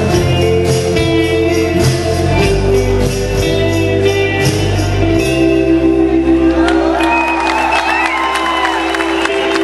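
Live rock band playing amplified in a hall: drums, bass and electric guitars over sustained chords. About five seconds in the drums and bass drop out, leaving the held chords, and gliding high tones come in near the end.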